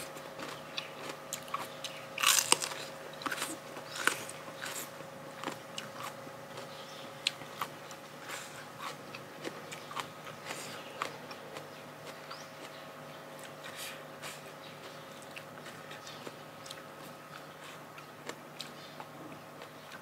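Close-miked eating of spicy seafood papaya salad: crisp crunching bites and chewing, densest about two seconds in, then sparser chewing clicks. A faint steady hum runs underneath.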